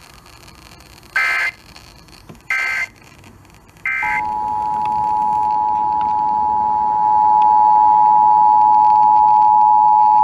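Emergency Alert System tones over FM radio: three short screeching bursts of SAME digital data, each a fraction of a second, then about 4 seconds in the steady two-tone EAS attention signal starts and holds, getting a little louder about 7 seconds in.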